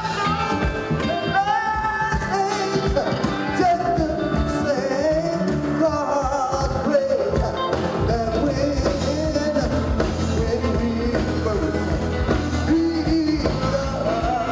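Live gospel music: a male voice sings long, gliding lines over organ and drums keeping a steady beat.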